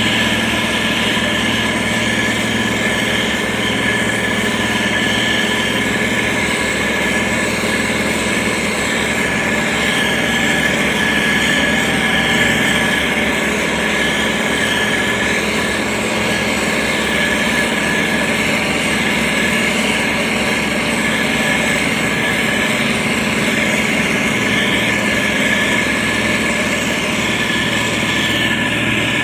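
SANY STG190C-8S motor grader's diesel engine running steadily under load, with a steady high whine on top.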